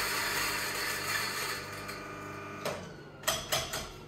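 Electric coffee grinder running and spinning down, fading out over the first two seconds. Then come four sharp taps close together at the grinder.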